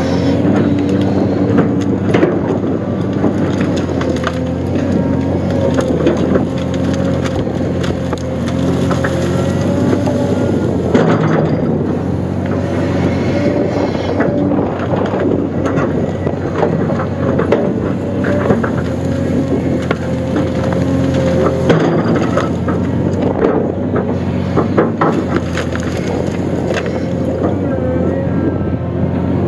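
Cat 336D excavator's diesel engine running steadily under load, with a higher whine held over it. Cracks, snaps and knocks of timber come throughout as the bucket works through logs and brush.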